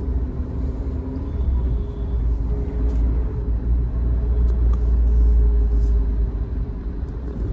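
Low, steady rumble of a car moving slowly in heavy traffic, heard from inside the cabin: engine and road noise, swelling a little about halfway through.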